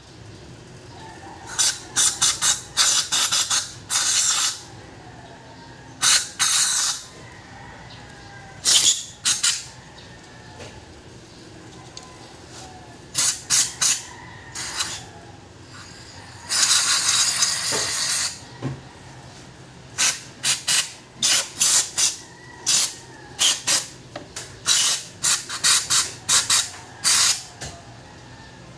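Aerosol throttle-body cleaner sprayed through its straw into a throttle body in repeated short bursts, with one longer spray of about two seconds midway.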